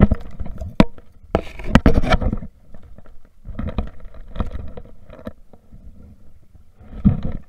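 Clunks, scrapes and rattles of a landing net and fishing rod being handled in a small boat, coming in irregular bunches, over a low steady rumble.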